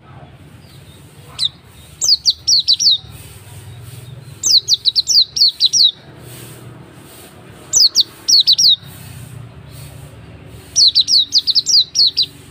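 Hume's white-eye (pleci auri) singing: a single high chirp, then four quick bursts of rapid, sharply down-slurred high chirps about three seconds apart, over a faint low hum.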